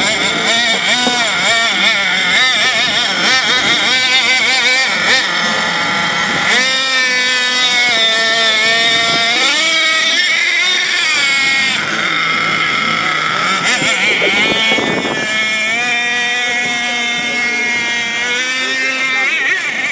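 Radio-controlled monster truck's motor revving hard and easing off as the truck churns through a mud pit, its high pitch rising and falling again and again.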